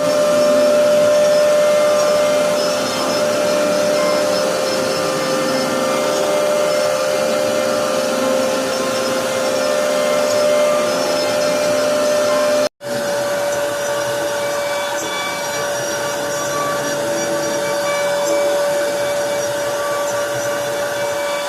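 CNC router spindle running and carving wood: a steady whine over the rasp of the bit cutting. It breaks off abruptly about twelve seconds in and picks up again at once.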